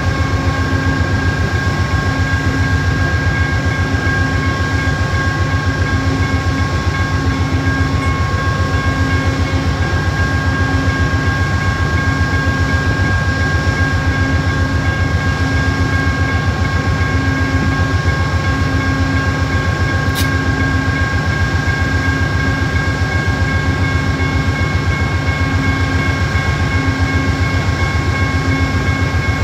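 Amtrak GE Genesis P42DC diesel locomotive standing with its engine running, a steady, rapidly pulsing low rumble with constant high-pitched whine tones over it. A single short sharp tick about two-thirds of the way through.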